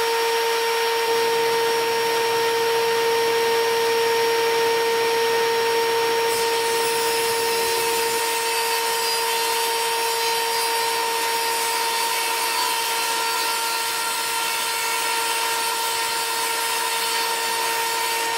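Benchtop table saw running with a steady high whine while a drawer-front board is fed through the spinning blade and cut.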